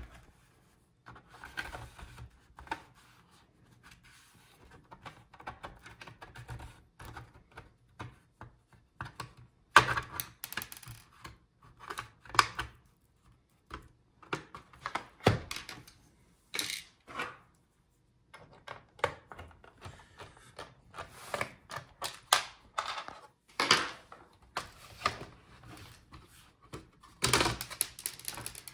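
MSI GL75 laptop's plastic bottom cover being pried off: irregular clicks and snaps as its retaining clips let go, with rattles of the case being handled.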